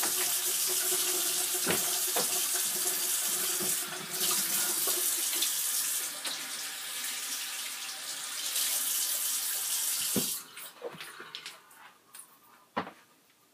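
Kitchen faucet running water into the sink with a steady splashing rush, shut off about ten seconds in. A couple of light knocks follow.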